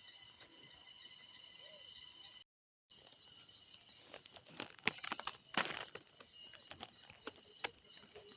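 Crickets chirring steadily in a high, even chorus. After a brief dropout, the chorus goes on under a run of irregular crackles and rustles, loudest near the middle.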